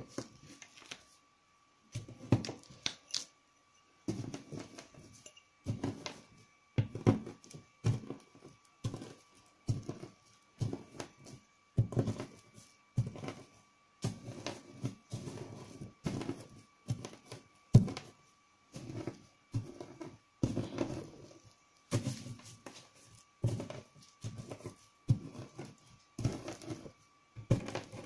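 Dry coloured soap shavings crunching as they are pressed down with a glass tumbler and by hand, about once a second. Each press gives a short, gritty crunch that is rather dull, not very crisp.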